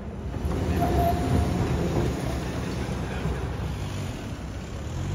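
A rail vehicle rumbling past on street rails, with a brief thin high tone about a second in.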